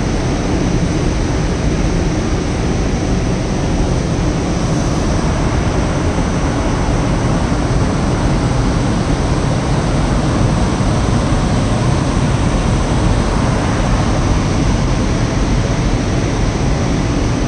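PKP EP07 electric locomotive standing at the platform with its cooling blowers running: a loud, steady rushing hum that does not change.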